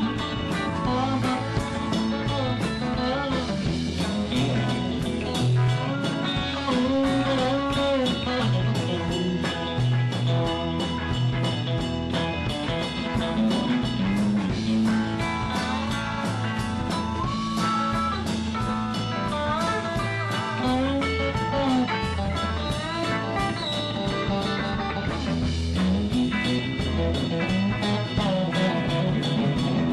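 Live rock band playing, with guitar over a steady drum-kit beat.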